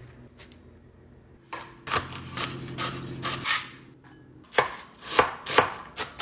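Knife chopping vegetables on a plastic cutting board: about a second and a half in, a run of quick repeated cuts, then several sharper single chops through red onion near the end.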